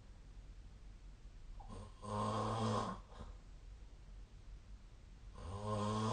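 A sleeping person snoring: two steady-pitched snores, each about a second long, one about two seconds in and the next starting near the end, with quieter breathing between them.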